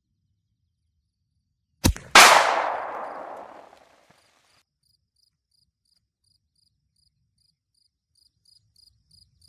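A single 7mm-08 rifle shot about two seconds in: a sharp crack, then a loud report that echoes and rolls away over about two seconds. After it, a cricket chirps faintly and evenly, about twice a second.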